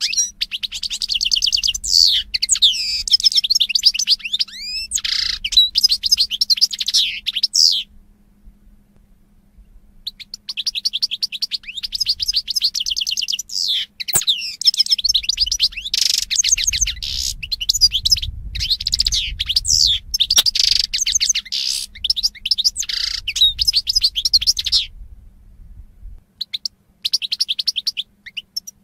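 European goldfinch singing: long phrases of rapid, liquid twittering and trills mixed with buzzy notes. The song breaks off for about two seconds a third of the way in, resumes for a long run, and ends with a short final phrase.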